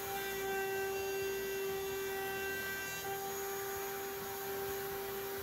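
Router in a router table spinning a round-over bit, a steady hum-like whine, as an end grain cutting board's edge is fed past the bit.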